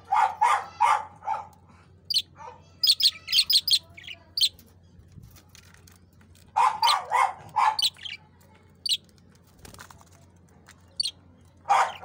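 Pet budgerigars chirping in short high twitters. Louder, lower-pitched calls in quick runs of four or five come near the start, again around seven seconds in, and at the end.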